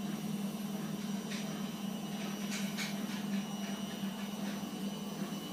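A steady low hum with a few faint clicks.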